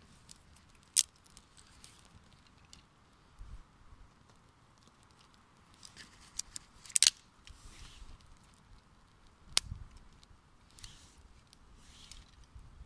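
Small campfire of twigs and split wood crackling, with scattered sharp pops: the loudest about a second in, a quick cluster around seven seconds in and another near ten seconds.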